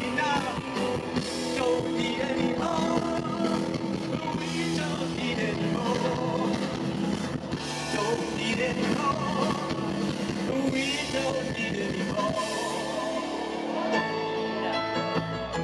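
Rock band playing live, with electric guitar and keyboards, in a stretch without sung words. The low end drops away briefly about 13 seconds in before the full band returns.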